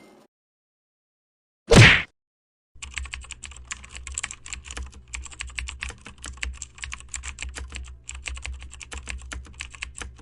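A short loud burst about two seconds in, then a computer keyboard typing sound effect: rapid, irregular key clicks for about eight seconds over a low hum.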